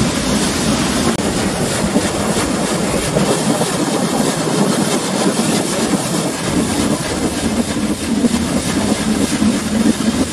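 Metre-gauge Nilgiri Mountain Railway toy train running, heard from a coach: wheels clattering and rattling on the track over a steady low hum.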